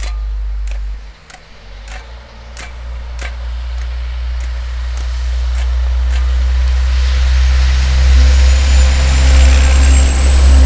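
Diesel log truck pulling an empty log trailer drives up and past, its engine and tyres growing steadily louder over several seconds under a heavy low rumble. A faint thin high whistle rises slightly near the end.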